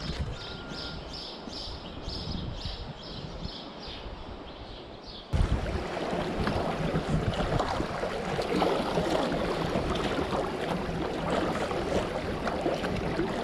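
River water rushing and splashing around a kayak as it runs through a riffle. This comes in abruptly about five seconds in, after a quieter, steady wash of water.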